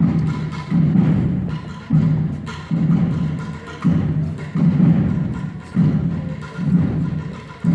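Procession drums beating a slow march: a pair of deep strokes, the second about 0.7 s after the first, repeating about every two seconds.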